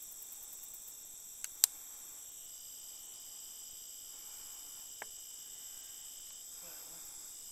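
Night insect chorus: steady high-pitched trilling from insects in several tones. A few sharp clicks cut through it, two close together about a second and a half in, the second much the loudest, and a fainter one near five seconds.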